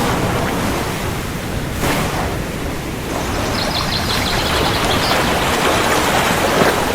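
Heavy rain falling in a steady, dense hiss, with a low rumble of thunder beneath it.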